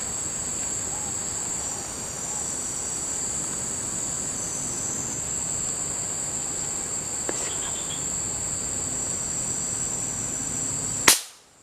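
Steady high-pitched drone of insects, then near the end a single sharp crack of a PCP air rifle shot; the insect drone drops away abruptly right after it.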